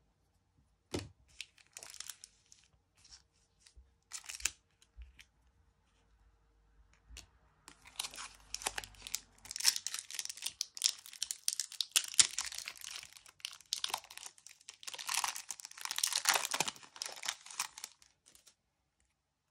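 Foil wrapper of a FIFA 365 trading-card booster pack being torn open and crinkled in the hands, in two long stretches of crackling and tearing. A few light clicks of cards being handled come first.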